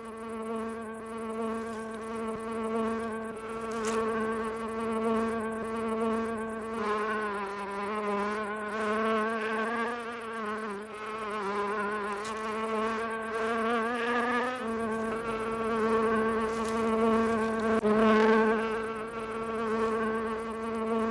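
Water beetle in flight: a steady buzz of beating wings, a low hum with many overtones, its pitch wavering in the middle.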